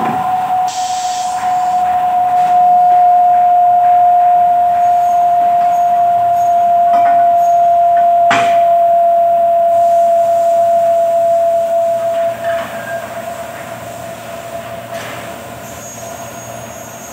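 Milling machine motor running with a steady high whine that slowly sinks in pitch and fades about twelve seconds in. A single sharp knock sounds about eight seconds in.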